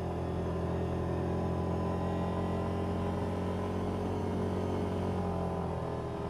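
Yamaha Viking side-by-side's single-cylinder engine running as a steady drone while driving at an even speed, heard from inside the open cab.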